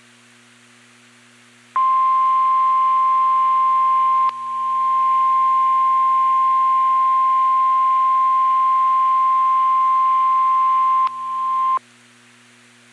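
NOAA Weather Radio warning alarm tone: a single steady 1050 Hz beep lasting about ten seconds, starting about two seconds in, with brief dips in level about two and a half seconds after it starts and again just before it stops. A faint steady hum runs under it, signalling that a warning broadcast follows.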